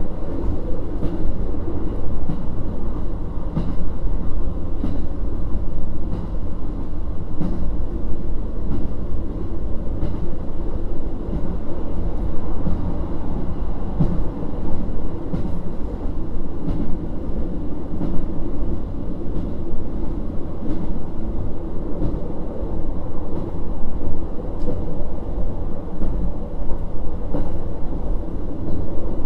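Interior running sound of a KiHa 40 1700-series diesel railcar under way: the steady rumble of the diesel and the wheels on the rails, with a steady run of clicks as the wheels pass over rail joints.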